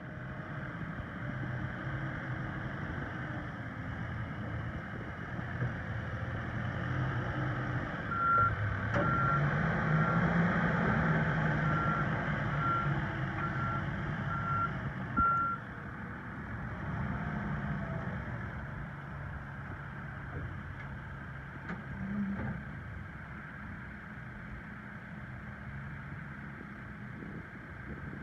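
Case 580N backhoe loader's diesel engine running, revving up as the machine backs up while its reversing alarm beeps steadily for several seconds in the middle, then settling back to a steady run.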